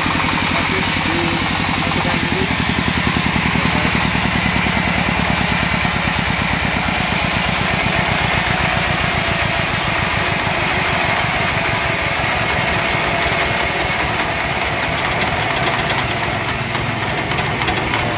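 Jiang Fa single-cylinder diesel engine running steadily with an even, rapid chugging pulse.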